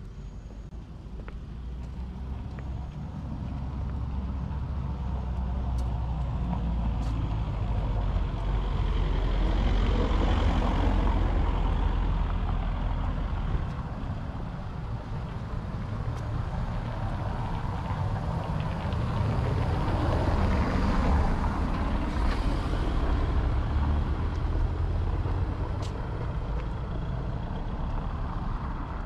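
Road traffic passing close by: two motor vehicles go past one after the other, each swelling and fading over several seconds over a heavy low rumble.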